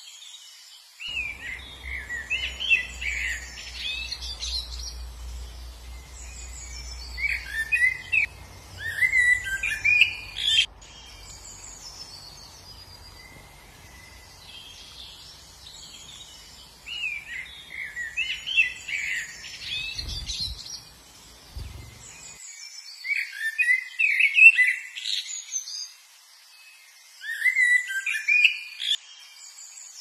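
Small songbirds chirping and twittering in repeated bursts of quick, high notes, with short pauses between the phrases. A faint low rumble lies underneath for much of it, ending after two soft thumps about two-thirds of the way through.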